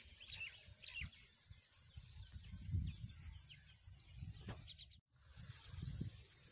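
Wind buffeting the microphone in low rumbling gusts, with small birds chirping faintly in the first second or so. The sound drops out for a moment about five seconds in, and after it a steady high insect drone sits under the wind.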